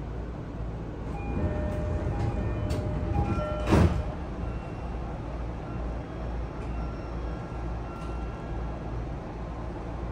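Cabin sound of a Sotetsu 10000 series electric commuter train car at a station stop: a steady low rumble with a few short high electronic tones, and one loud knock about four seconds in.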